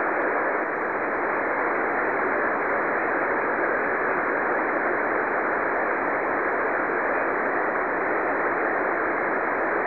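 Steady hiss of band noise from a shortwave ham radio receiver tuned to the 40-metre band, on an open frequency between two operators' transmissions. The hiss is even and thin, with nothing above it.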